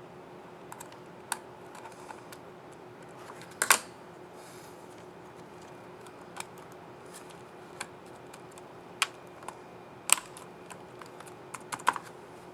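Scissor-switch keys on an Acer Aspire R 15 R5-571TG laptop keyboard clicking: about a dozen scattered presses and snaps at an uneven pace, with a quick run of them near the end, over a faint steady hum.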